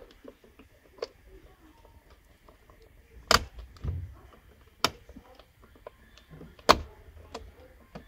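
Toyota Prius III side-mirror glass being pried off its plastic retaining clips with a screwdriver: four sharp plastic clicks and snaps spread over several seconds, with a dull knock among them.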